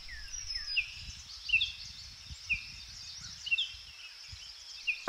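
Summer meadow ambience: a bird giving repeated short chirps, roughly one a second, over a steady high insect buzz, with a low rumble underneath.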